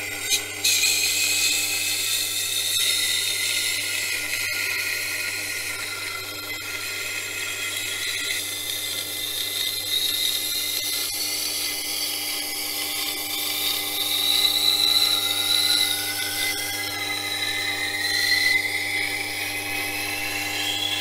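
Wet grinder running with a knife blade held in a jig against its 400-grit wheel: a steady motor hum under the hiss and whine of steel being ground on the wet wheel. The whine drifts up in pitch over the last several seconds.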